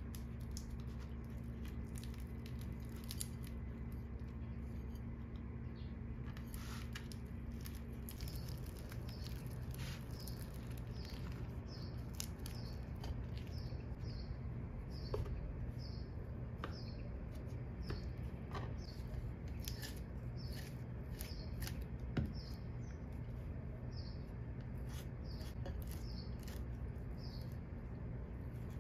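Soft clicks and taps of hands handling flatbread and a wooden spoon on a ceramic plate, over a steady low hum. From about eight seconds in a small bird chirps over and over, about one and a half short high chirps a second.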